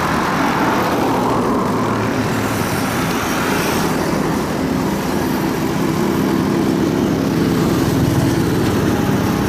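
Shibaura SD4000 tractor's diesel engine running steadily under load as it pulls a trailer loaded with logs.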